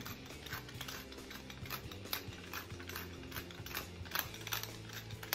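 Hand-twisted pepper mill grinding peppercorns onto meat: a run of dry ratcheting clicks, about three a second.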